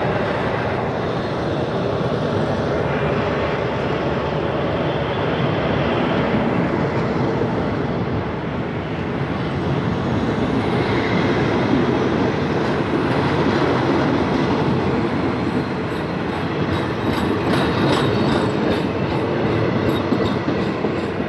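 Passenger coaches of a departing train rolling past at low speed, with a steady rumble of wheels on the rails. Wheels click over the rail joints, more plainly near the end.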